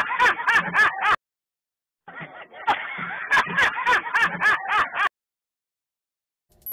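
A man laughing hard in rapid, rhythmic pulses, about five a second, in two bursts with about a second of silence between them.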